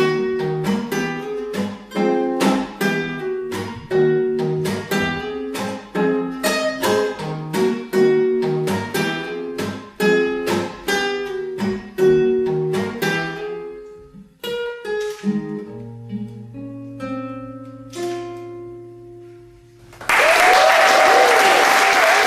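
Acoustic guitar fingerpicked in a steady pattern of single notes, slowing about two-thirds through into a few long held closing notes. Audience applause breaks out about two seconds before the end.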